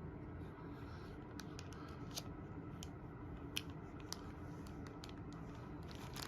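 Faint scattered ticks and crinkles from a model-kit sprue being handled in its sealed plastic bag, about ten short ticks over a steady low hum.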